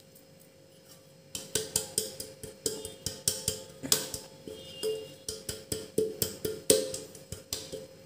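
Stainless steel cake tin knocked and tapped over and over while it is tilted and shaken to spread a flour dusting over its greased inside. The sharp, ringing knocks come about three or four a second, starting about a second and a half in and stopping just before the end.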